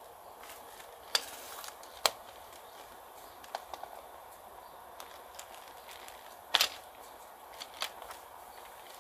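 Plastic shrink-wrap on a pair of new drum brake shoes crinkling as it is handled and pulled open, in a handful of sharp crackles, the loudest about six and a half seconds in.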